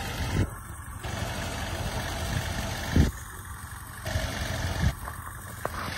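Seaside road train's engine running at a low, steady idle as the train rolls slowly past, with three short thumps, the loudest about three seconds in.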